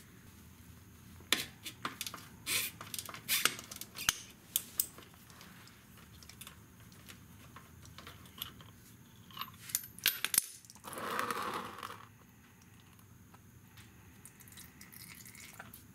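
Scattered sharp metallic clicks and clinks of a socket wrench working the oil filter screen cap on a 2001 Honda Helix scooter's engine, as the cap is loosened. A brief scraping noise comes about eleven seconds in.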